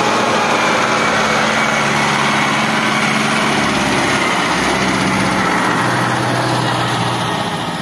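Fiat farm tractor's diesel engine running steadily at working speed, its pitch shifting about halfway through; the sound fades out near the end.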